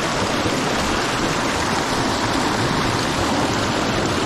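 Steady rushing of a fast river's current, loud and close.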